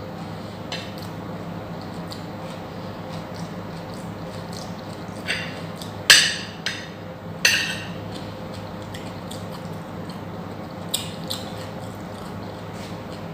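Close-miked eating sounds: chewing and mouth noises, with a few louder sharp bites or crunches about five to eight seconds in and two more near eleven seconds, over a steady low hum.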